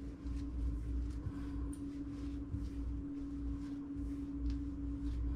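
Soft, faint rustles and pats of hands rolling and pressing slightly sticky bread dough on a countertop, over a steady low hum.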